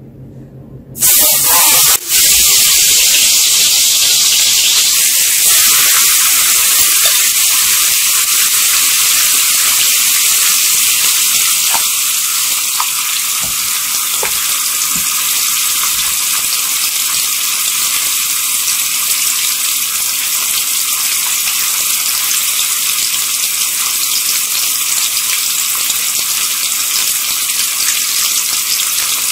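Marinated chicken wings sizzling loudly in hot oil in a wok. The sizzle starts suddenly about a second in as the wings go into the oil, then settles into a steady hiss that eases slightly about halfway through.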